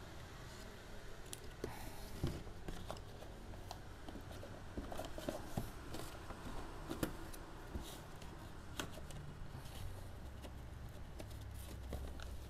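Paper and cardboard knife boxes being handled in a cardboard shipping carton: light rustling with scattered taps and knocks, the sharpest about two seconds in and again around seven seconds.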